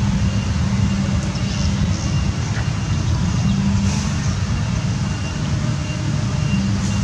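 Steady low rumble of outdoor background noise, with a faint thin high tone coming and going.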